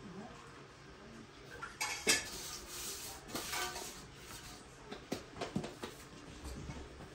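Aluminium steamer tray and ladle clattering and clinking as they are handled, in scattered knocks with the loudest about two seconds in.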